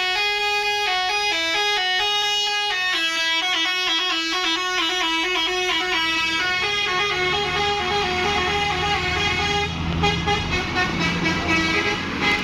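A tour bus's telolet horn, a multi-tone musical air horn, playing a fast melody of stepping tones, with the bus's engine rumbling underneath from about halfway through.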